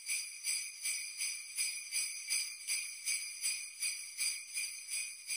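Jingle bells shaken in a steady rhythm, about three shakes a second, with a bright jingling ring.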